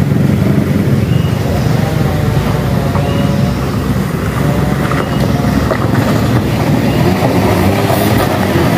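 Suzuki Carry minivan's engine running steadily as the van drives over a rough gravel and dirt road, with tyre and gravel rumble under it.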